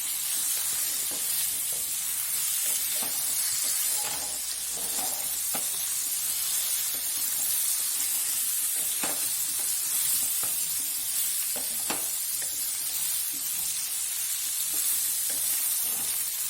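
Cut okra sizzling as it fries in shallow oil in a pan, with occasional taps and scrapes of a spoon stirring it against the pan. It is being fried until its sliminess cooks off.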